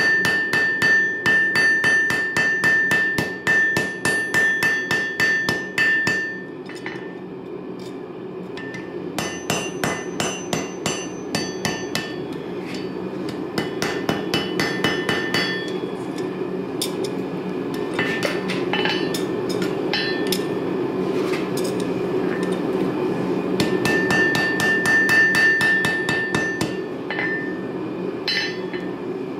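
Hand hammer striking a red-hot railroad spike on a steel anvil in quick runs of blows, many with a bright ringing tone from the anvil, with a pause of about two seconds between runs. A steady low rushing noise runs underneath.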